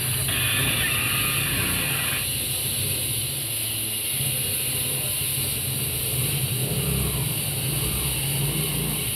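A steady low engine-like hum with a constant hiss over it, holding even throughout.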